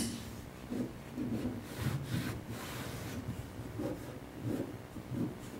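Shears cutting and rubbing through jute carpet padding laid on a car floor: a few soft scraping, rustling strokes of the fibrous padding, the strongest about two seconds in.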